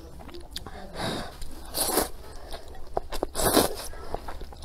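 A person slurping wide flat noodles out of a spicy broth and chewing, with two loud slurps about two and three and a half seconds in and small wet mouth clicks between them.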